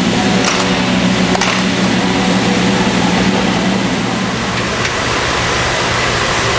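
Steady gym background noise, a loud, even hum and hiss like ventilation running, with a couple of faint clicks in the first second and a half.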